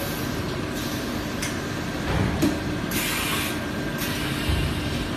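Automatic high-frequency PVC welding machine running: a steady hum under repeated short hisses of air.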